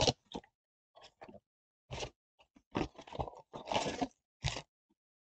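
A Topps Chrome blaster box being opened by hand: the cardboard box and its stack of foil card packs crinkling and rustling as the packs are pulled out, in a string of short crackles with the longest one a little under four seconds in.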